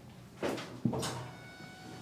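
Brief rustles and a soft thump as hands and a body shift on a padded treatment table during manual therapy, followed by a faint steady high electronic whine.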